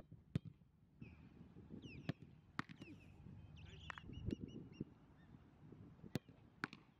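Sharp knocks of a soccer ball being kicked and then caught, parried or hitting the ground during goalkeeper shot-stopping drills, about eight in all. Birds call in the background between them.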